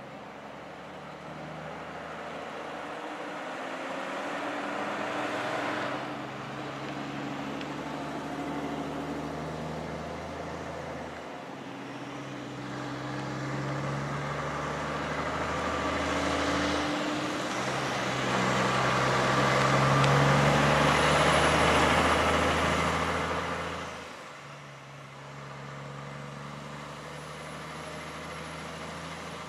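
A heavy vehicle's engine running, its pitch shifting in steps every few seconds. It grows louder to a peak about twenty seconds in, then drops back to a steadier, quieter run.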